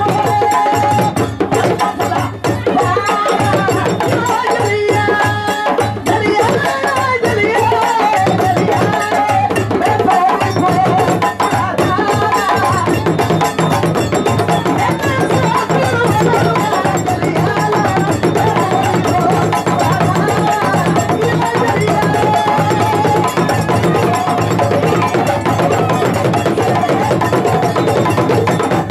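Mande drum ensemble of djembes and stick-played dundun bass drums in the Khassonke style, playing a fast, steady dance rhythm without a break. Voices sing over the drumming.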